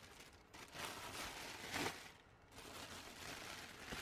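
Plastic air-pillow packing being handled and pulled out of a cardboard box, crinkling and rustling in two spells, the louder one near the middle.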